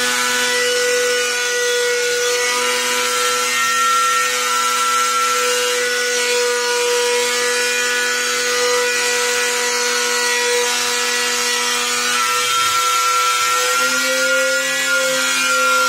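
Handheld electric router running steadily as it is fed along the edge of a Corian solid-surface countertop, a high motor whine over the hiss of cutting. The pitch sags briefly near the end and picks up again.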